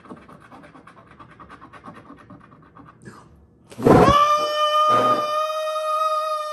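Faint rapid scratching of a scratch-off card, then about four seconds in a man breaks into a loud, long yell held on one pitch, in shocked excitement, with a couple of knocks as he moves.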